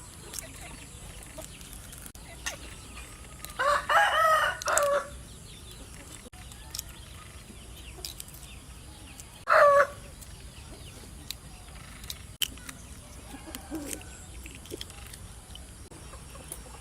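A rooster crowing about four seconds in, then a shorter single call just past halfway, over faint scattered clicks.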